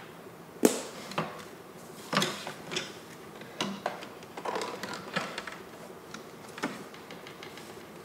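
Irregular clicks, taps and knocks of an EVGA 1080 Ti FTW3 Hybrid graphics card, its cooler hoses and cables being handled and pushed into place in a PC case. The sharpest tap comes under a second in.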